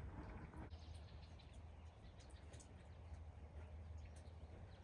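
Near silence: a faint steady low hum with a few scattered faint ticks.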